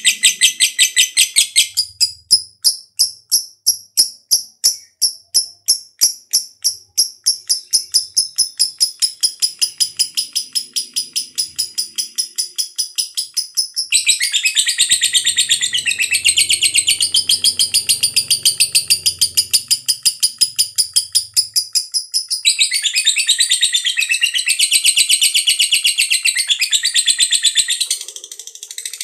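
Lovebird ngekek: one long, unbroken chattering trill of rapid, high-pitched repeated notes. It turns fuller and harsher about halfway through and again near the end.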